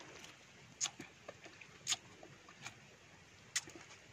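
A person eating fruit close to the microphone: wet mouth clicks and lip smacks while chewing and sucking. Four sharper smacks come roughly a second apart, with softer ticks in between.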